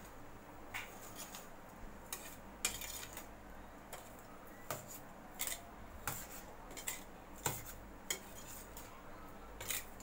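Steel spoon clinking and scraping against a steel pot while stirring crumbly steamed ragi flour and sugar, in irregular taps about once a second.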